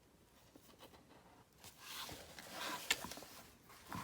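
Rustling and scraping of ribbon and lace being handled and pushed into place on a paper journal, starting about a second and a half in, with one sharp click near three seconds.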